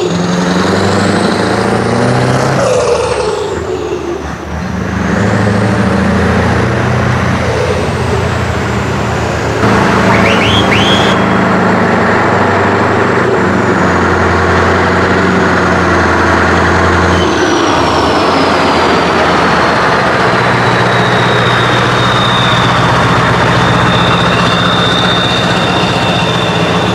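Scania 143M 450's V8 diesel with an open exhaust pipe, loud, revving up and down and then pulling steadily as the truck moves off. A high whistle rises and falls with the engine and later holds steady.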